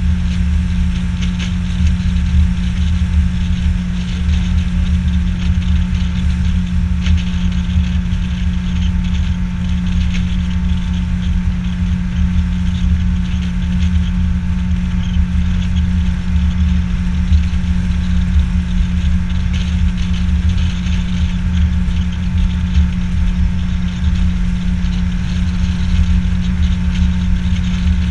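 Boat's outboard motor running at a steady cruising speed while the boat is underway, a constant hum over a rumbling low end that does not change in pitch.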